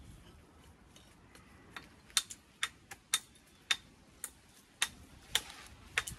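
Sharp taps of a walling hammer striking stone, about ten in a row, one roughly every half second, starting about two seconds in.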